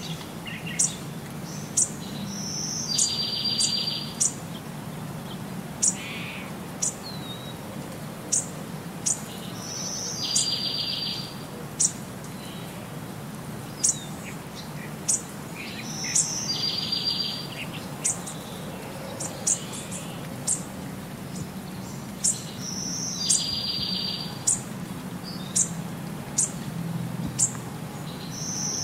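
Birds chirping: short, sharp high chirps about once a second, and one bird repeating the same brief buzzy trill about every six or seven seconds, over a steady low hum.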